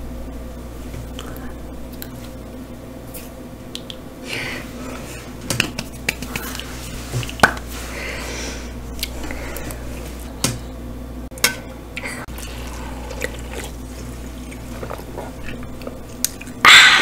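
Light handling sounds at a table: scattered sharp taps and clicks and short soft rustles over a steady low hum. A sudden loud hissing noise starts just before the end.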